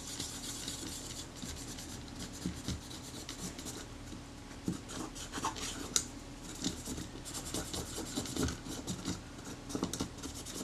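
A solvent-dampened cotton swab scrubbing rapidly back and forth over the bare die-cast metal base of a Kodak Retina IIIS camera body, rubbing off leftover leatherette adhesive in quick, irregular scratchy strokes.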